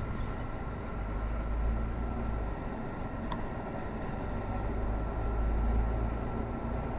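Inside a Mercedes-Benz Citaro C2 city bus under way: low engine rumble and road noise that swells twice, with a faint steady high whine and a single sharp click a little over three seconds in.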